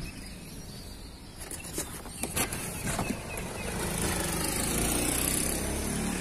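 A road vehicle passing close by outdoors, its noise swelling over a couple of seconds to a peak near the end, with a few sharp clicks shortly before it.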